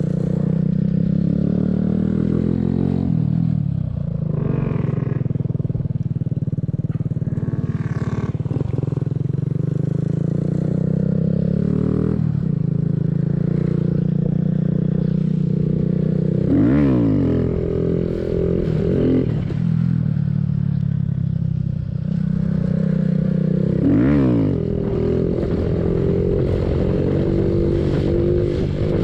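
Mini bike's small single-cylinder engine running under way, its note steady for long stretches, then swooping up and down twice in the second half as it revs.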